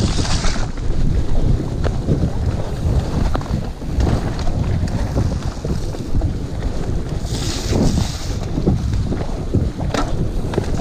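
Wind buffeting an action camera's microphone on a mountain bike riding fast down a muddy forest trail, with the tyres on the wet dirt and the bike clattering over bumps. Two brief hissing spells come near the start and about three-quarters of the way through.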